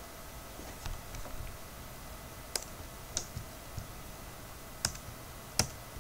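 Computer mouse clicks: a handful of short, sharp clicks at uneven intervals, the loudest about two and a half, three, five and five and a half seconds in, over a faint steady background hum.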